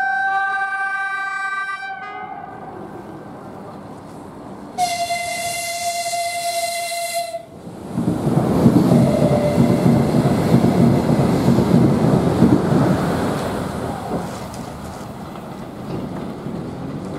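Lastochka ES1P electric multiple unit sounding its horn twice, a short blast at the start and a longer single-note blast about five seconds in, then rushing past at speed with a loud rumble of wheels and air that slowly fades.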